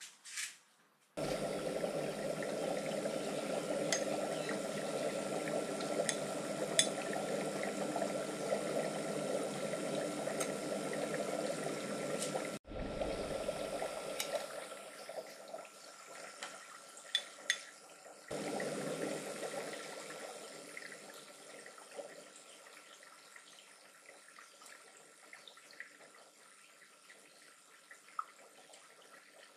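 Air bubbling steadily through etching solution in a glass jar, fed through a tube, with a few small sharp clicks. The bubbling fades gradually over the last ten seconds.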